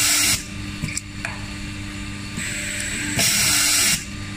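Self-clinching fastener insertion press with pneumatic auto-feed cycling over its steady machine hum: a short loud hiss of compressed air at the start, a couple of light clicks about a second in, then a quieter hiss from a little past halfway that turns into a loud air blast near the end. Each blast feeds the next M3 fastener to the punch.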